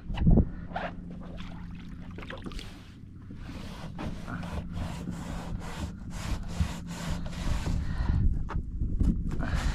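A knock at the start, then a run of short rubbing and scraping handling noises over a faint steady low hum.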